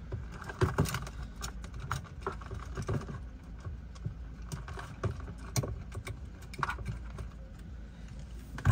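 Inside a car waiting at a standstill: a steady low cabin rumble with irregular light clicks and taps, and one sharper knock near the end.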